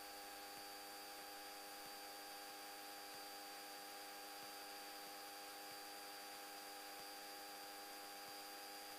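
Faint, steady electrical hum made of several even tones, with a thin high whine over a hiss, unchanging throughout: noise on the aircraft's radio and intercom audio line.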